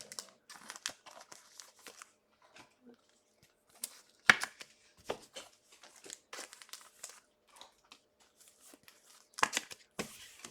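Trading cards and their packaging being handled: scattered short rustles, scrapes and crinkles, with two louder ones about four and nine and a half seconds in.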